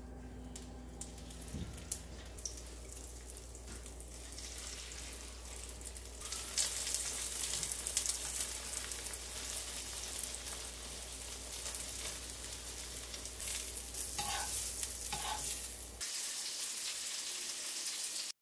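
Hot oil sizzling in a nonstick frying pan as egg-battered perilla leaves (kkaennip jeon) fry, with zucchini slices frying in a second pan. The sizzle grows louder about six seconds in and stays steady.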